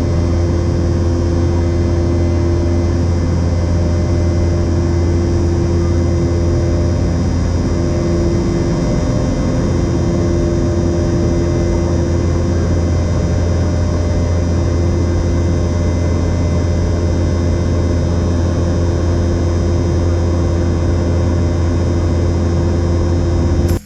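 Steady, loud cabin drone of a Boeing 717-200's Rolls-Royce BR715 turbofan engines, with a low hum and a high steady whine, heard from inside the cabin. It cuts off suddenly near the end.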